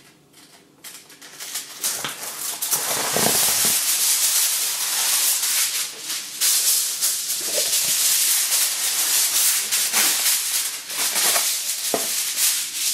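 Aluminium foil crinkling and rustling loudly as a sheet is pulled out of its box, torn off across the box's cutting edge and spread flat by hand. The crackling starts about a second in.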